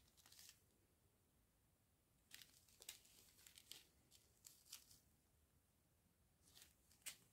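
Small plastic zip-lock bags of diamond-painting drills rustling as they are handled, in several short, faint bouts with quiet between.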